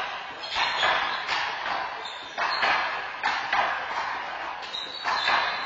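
A handball rally: the rubber ball is slapped by hands and smacks off the wall and floor about once a second, each hit echoing in the court. Heard through a security camera's microphone.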